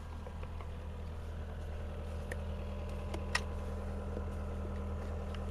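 An engine idling steadily in the background, with a couple of faint clicks.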